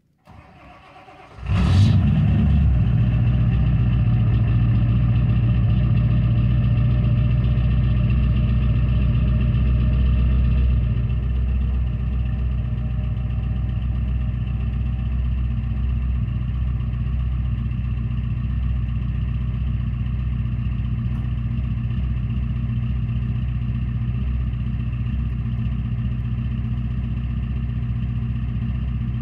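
Ford E-350's 7.3 L Power Stroke V8 turbodiesel, with a Holset HX50 turbo and dual 5-inch exhaust, cranking briefly and catching about a second and a half in on a cold start. It then runs steadily at a fast idle, dropping slightly in level about ten seconds in.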